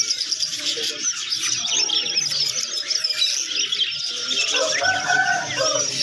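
Many caged birds chirping and twittering at once: a dense, unbroken high chatter, with some lower calls joining in about two-thirds of the way through.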